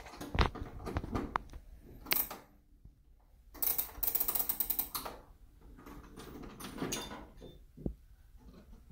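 Clockwork mechanism of a Gamewell fire-alarm instrument being worked by hand: scattered mechanical clicks, with a dense run of rapid ratcheting clicks about halfway through.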